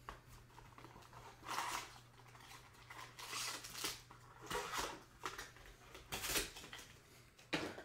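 A trading-card box being opened and its foil-wrapped pack unwrapped by hand: short bursts of crinkling and rustling, about five of them.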